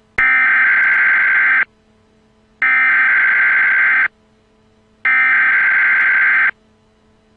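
Emergency Alert System SAME header data bursts: three identical loud, buzzy digital bursts, each about a second and a half long with about a second's gap. They open a broadcast tornado warning. A faint steady hum sounds in the gaps.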